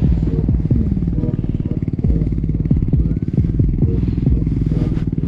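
Engine of the tow vehicle running steadily at speed as it pulls a wakeboarder on a rope, with a rapid, even throb.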